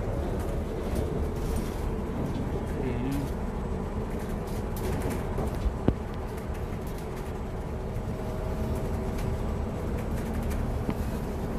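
Cabin noise inside a moving hydrogen fuel-cell bus: a steady low rumble of road and drive. A single sharp click sounds about halfway through.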